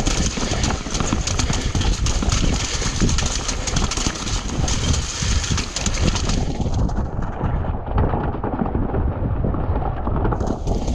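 Commencal Clash enduro mountain bike descending a wet, rocky, flooded trail at speed: heavy wind rumble on the camera microphone, with the tyres splashing through running water and the bike rattling over stones. The sound turns muffled for a few seconds past the middle, then clears.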